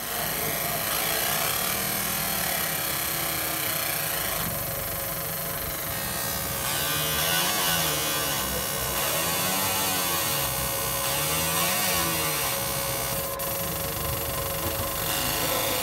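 Laser marking machine engraving a brass plate in relief: a steady buzzing hiss with a constant hum. Tones sweep up and down over and over as the beam traces the pattern, with a single sharp click near the end.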